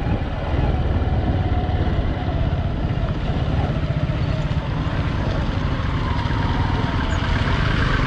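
Motorcycle engine running steadily while riding along a rough dirt road, under a constant rush of wind and road noise.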